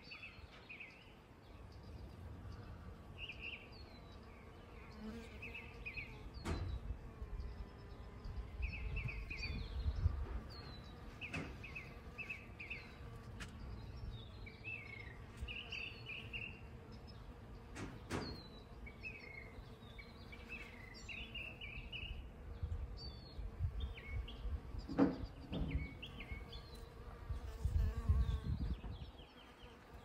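Honeybee buzzing as a steady hum while foraging at lemon blossoms, with small birds chirping and trilling in short repeated phrases throughout. A few sharp clicks and intermittent low rumbles, loudest about ten seconds in and near the end.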